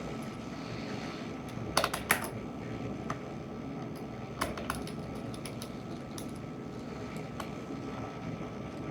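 Scattered small clicks and taps of a screwdriver tightening the captive screws of a laptop's bottom cover, a quick pair about two seconds in being the loudest.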